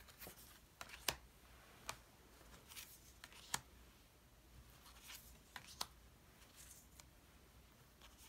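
Tarot cards being slid off a stack and laid down one at a time: faint soft clicks and short papery swishes, several of each.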